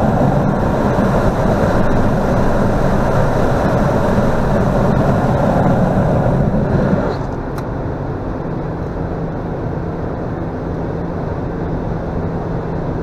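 Wind noise and road noise inside a car cabin at autobahn speed with the windows open: a loud, steady rush of air. About seven seconds in, the rush drops noticeably and turns duller, with a short click, leaving a steadier low hum.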